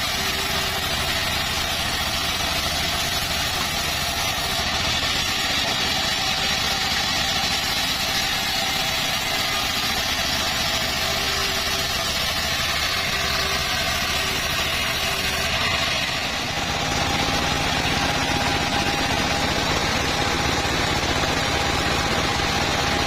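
Circular saw running steadily while slicing teak wood. Its sound changes about two-thirds of the way through, when a steady higher tone comes in.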